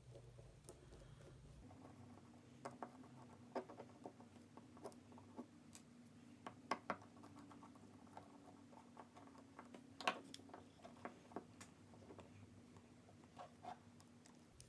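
Faint, scattered clicks and scratches of a small precision screwdriver working the Phillips head screws out of the back of a hand ratchet. A faint steady hum runs underneath from about two seconds in.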